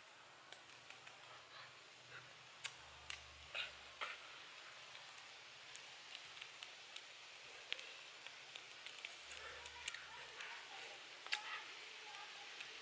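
Scattered sharp clicks and crackles at a small wood cooking fire under a grill of bamboo sticks, over a faint steady hiss; the loudest click comes about two-thirds of the way through.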